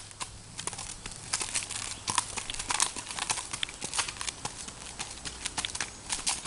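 Hooves of a Norwegian Fjord stallion striking a gravel road under a rider, a steady run of hoofbeats.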